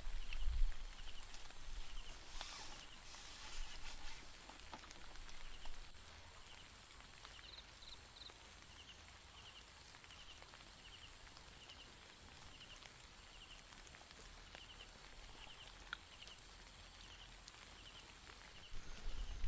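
A small animal's short, high, trilled chirp repeated a little more than once a second, faint over quiet outdoor background noise.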